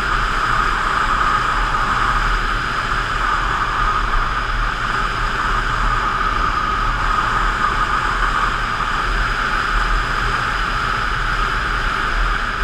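Yamaha FZ8 inline-four motorcycle being ridden at a steady speed: an unbroken rush of wind noise over a low engine drone.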